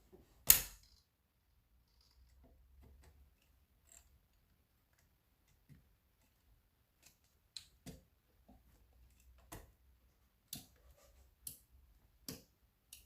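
Plastic parts of a cordless mop being pressed together during assembly: one sharp snap about half a second in, then a run of lighter clicks and knocks as pieces are fitted into place.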